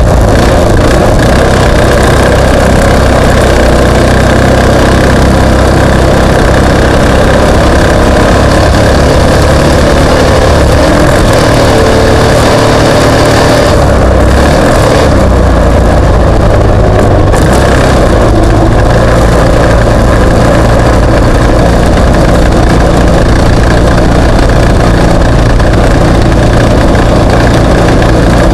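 Off-road race vehicle's engine running loud and steady, with small shifts in pitch.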